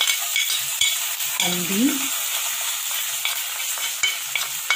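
Hot oil sizzling in a frying pan during tempering (tadka), with the mustard seeds and curry leaves in it spluttering in scattered sharp pops over a steady hiss.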